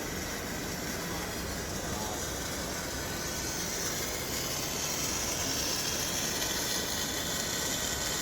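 Steady background noise of a large exhibition hall with a hiss that grows a little stronger about three seconds in.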